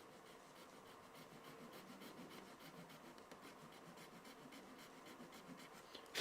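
Swiss Army knife metal saw blade sawing into a plastic knife scale: faint, quick scratchy strokes, about four a second. A sharp click comes at the very end.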